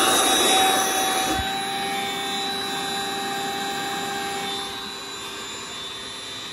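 Electric air-mattress pump running steadily, blowing air into a deflated air mattress. The hum gets a little quieter about five seconds in.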